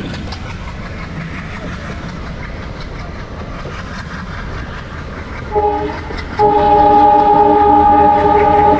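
Passenger train running on the track with a steady rumble and rattle. The locomotive's horn sounds a short blast about five and a half seconds in, then a long blast held for over two seconds, the loudest sound.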